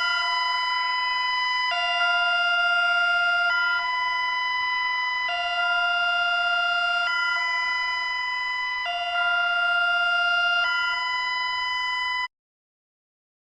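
Synthesized two-tone hi-lo alarm siren of an emergency alert, alternating between two buzzy pitches about every two seconds. It cuts off abruptly near the end.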